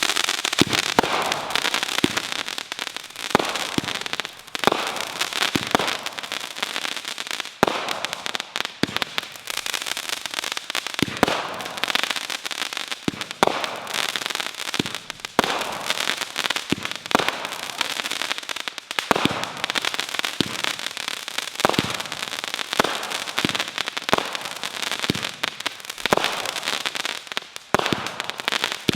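A 200-gram consumer fireworks cake firing shot after shot: sharp launch pops every half second to a second, over dense, continuous crackling from crackling-tail and crackling-bouquet effects.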